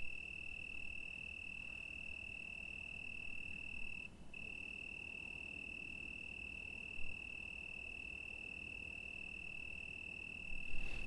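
A cricket trilling: one steady, unbroken high note that drops out briefly about four seconds in, over a faint low background noise.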